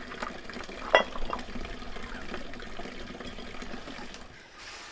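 Water pouring and splashing, with one sharp ringing knock about a second in.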